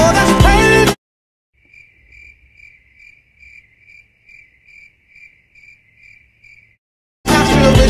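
A pop song cuts off. A cricket chirping sound effect follows: about a dozen evenly spaced chirps of one pitch, a little over two a second. Near the end the song starts again.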